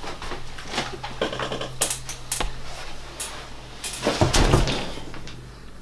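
A man dropping off a metal-framed chair onto a carpeted hollow floor: small clicks and knocks at first, then a heavy thud of the body landing about four seconds in.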